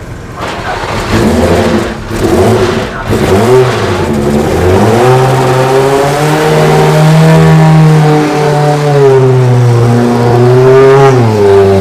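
Turbocharged four-cylinder race car engine being fired up. It sounds uneven for the first few seconds, then catches and runs at a raised idle, its revs rising, dipping and rising again near the end.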